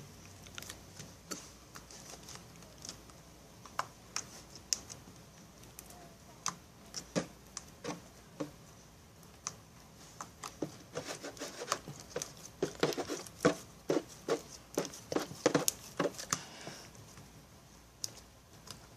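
Clear glue slime being kneaded and squished by hand, giving a string of irregular small wet clicks and pops, thickest about two-thirds of the way through.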